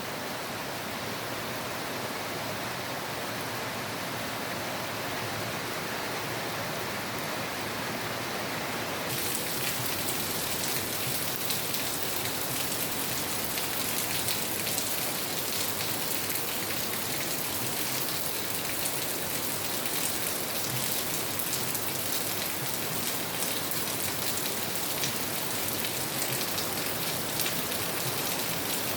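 Steady rain falling, an even hiss of many drops. About nine seconds in it turns abruptly louder and hissier, with single drops ticking out.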